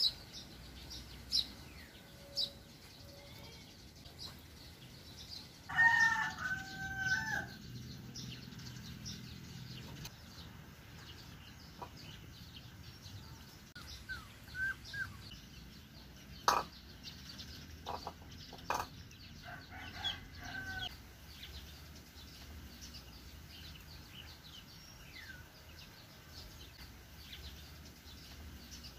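Outdoor background sound with a loud, long bird call about six seconds in and a fainter one around twenty seconds, among scattered short chirps and clicks.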